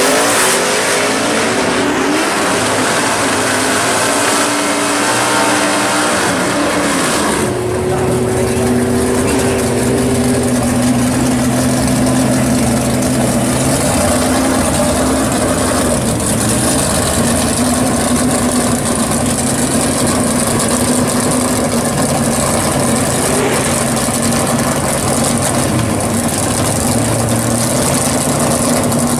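Drag-racing cars leaving the line and accelerating away, their engine pitch rising, then, about seven seconds in, the steady idle of drag cars waiting in the lanes, among them a second-generation Chevrolet Camaro.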